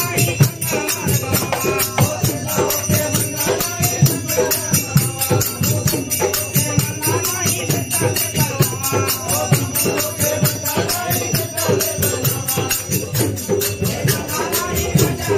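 Group devotional bhajan singing with tabla and dholak drumming and a fast, steady jingling percussion rhythm.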